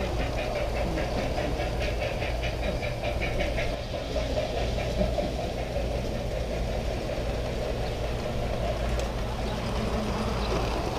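G-scale model train running along its track, heard from a camera riding aboard: a steady motor-and-wheel drone with a rapid, even ticking that stops about four seconds in.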